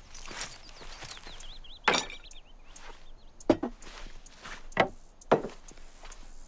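Footsteps on grass, a brief bird trill, then four sharp wooden knocks as a wooden tray, cutting board and pepper mill are set down on a wooden table. The loudest knock comes about midway.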